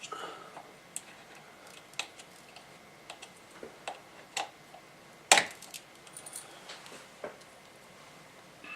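Small metal parts clicking and clinking as they are handled and fitted: scattered light clicks, with one sharper clack about five seconds in.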